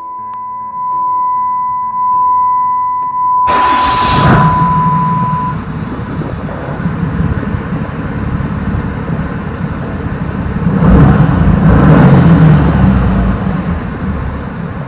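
A steady high electronic tone, then about three and a half seconds in a diesel truck engine starts and runs loudly, getting louder again near the end.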